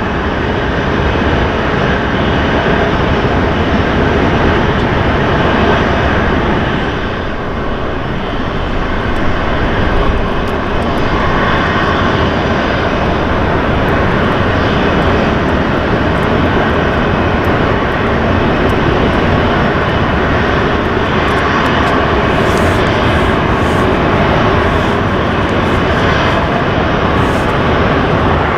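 Airbus A320-family airliner's twin jet engines running loud and steady as it rolls along the runway, a dense rushing jet noise that dips briefly about a quarter of the way in.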